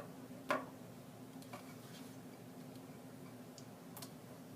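Rubber bands on a homemade box instrument being plucked while damped with cotton balls inside, giving a few short muted plucks; the loudest comes about half a second in.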